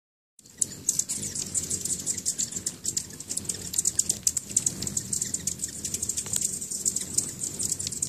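Several hummingbirds at nectar feeders giving rapid, high, sharp chip notes, many a second, over a low steady hum.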